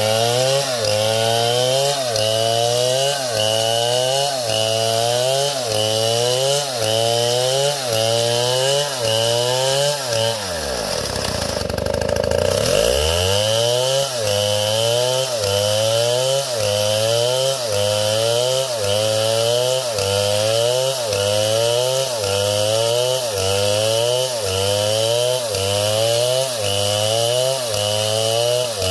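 Chainsaw running with a regular pulsing rise in pitch about one and a half times a second. About halfway through the engine speed sags and then climbs back.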